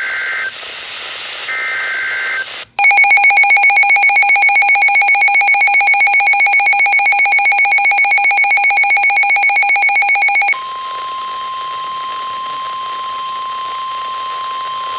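Emergency Alert System warning signals. It opens with two short screechy digital header bursts. About three seconds in, a very loud, harsh, pulsing two-tone attention signal sounds for about eight seconds. It then gives way to a steady single NOAA Weather Radio alert tone, just above 1 kHz, that holds for about five seconds, announcing a new severe thunderstorm warning.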